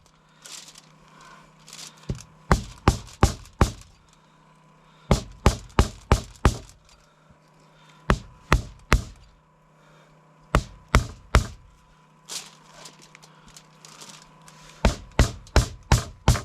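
Repeated chopping strikes of a blade through a whole hog's backbone, splitting it down the vertebrae. They come in quick runs of three to six blows, about three a second, with short pauses between runs.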